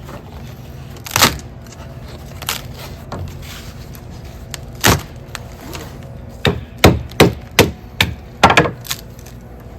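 Sharp knocks and cracks of dry, punky woodpeckered dead wood being broken up: a few separate strikes, then a quick run of about eight in two and a half seconds.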